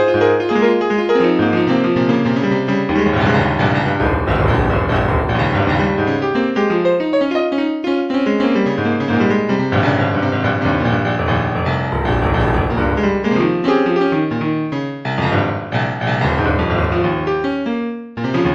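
Instrumental piano music, a flowing run of many notes over a low bass.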